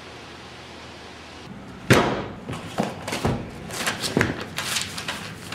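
A single loud thump about two seconds in, followed by a few lighter knocks and then quick rustling as the thin pages of a thick phone book are flipped through by hand.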